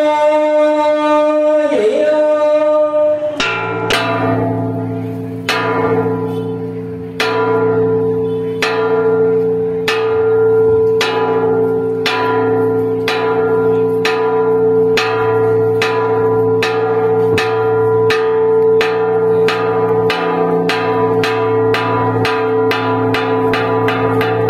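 A large ritual gong struck over and over, the strikes coming faster and faster, each ringing on into the next. It is preceded by a long held note lasting about three seconds.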